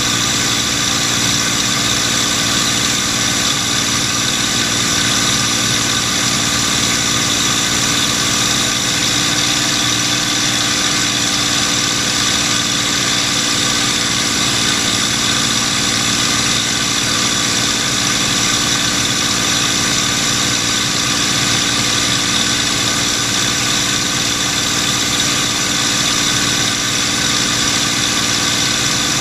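P-51 Mustang's Packard Merlin V-12 engine running at steady cruise power, heard from inside the cockpit as a constant drone with a high hiss over it.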